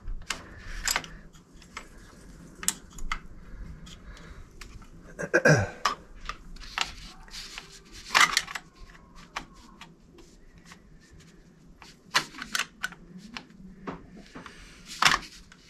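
A screwdriver clicking and scraping on the metal terminal screws and wires of a triple aquastat relay, in scattered sharp clicks and short scrapes. About five seconds in there is one brief louder sound that falls in pitch.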